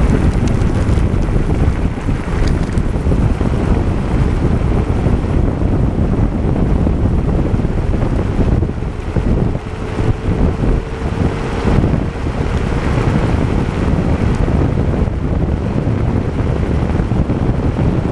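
Heavy wind buffeting on the microphone of a GoPro mounted by the wheel of a moving e-scooter, over a steady road rumble. A faint whine rises slightly around the middle.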